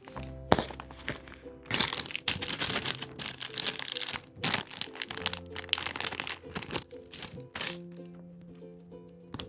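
Paper crinkling and rustling as a handmade paper blind bag is handled, densest from about two seconds in to about four seconds, with sharper bursts later, over soft background music.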